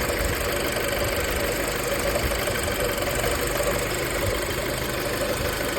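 Audi A4 B7 engine idling erratically, a fault the owner puts down to a bad engine wiring harness that also makes it stall.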